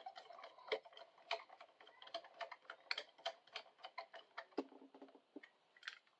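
Faint, irregular small clicks and taps, a few a second, from handling small metal crimp-on wire connectors and hand tools.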